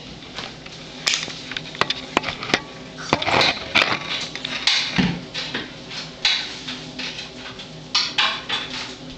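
Dishes and dishwasher racks clattering and knocking as a toddler handles them, with many sharp clicks and a dull thump about five seconds in.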